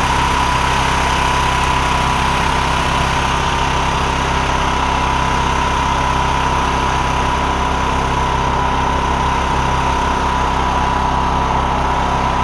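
A small engine running steadily at a constant speed, with a thin steady whine above it.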